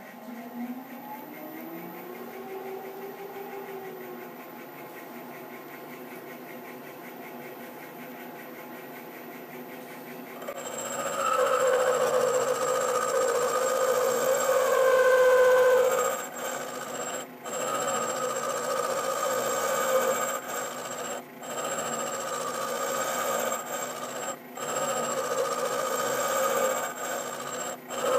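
Milling machine with an end mill cutting into a cast-iron lathe tailstock casting at 450 RPM. The machine runs lightly at first with a tone rising in pitch, then about ten seconds in the cut begins and gets much louder, with a steady ringing tone over the cutting noise, broken by short drops several times as the cut eases off.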